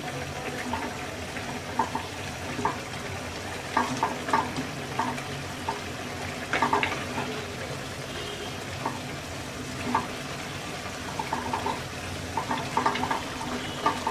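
Spinach and hilsa fish curry simmering in a wok on medium heat, a steady bubbling hiss with frequent small pops, while a wooden spatula stirs through the greens.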